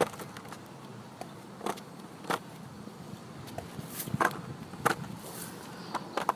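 Skateboard on a concrete sidewalk with a toddler standing on it: scattered sharp clacks and knocks, irregularly about a second apart, over a low steady rumble.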